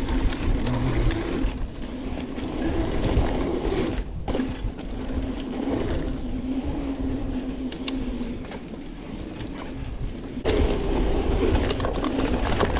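Specialized Stumpjumper FSR mountain bike rolling down a dirt trail: a low rumble of tyres over the ground with a constant rattling clatter of chain slap. It eases off about two-thirds of the way through and picks up again near the end.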